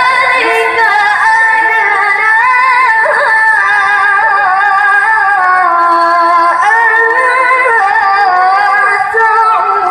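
A woman qori'ah reciting the Qur'an in melodic tilawah style into a handheld microphone: one long, ornamented phrase of held, wavering notes, with a short break for breath near the end.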